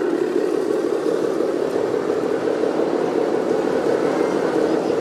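Small motor running steadily with an even whir.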